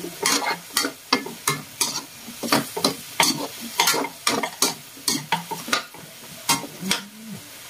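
Metal spoon scraping and clanking against a wok as pork and chicken pieces with potatoes and carrots are stirred, about two strokes a second, over a faint sizzle of frying.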